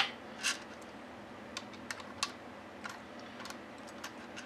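Brass rifle cases being handled: a sharp click as a case is set in a plastic loading block, then scattered faint ticks as the next case is fitted into a hand priming tool.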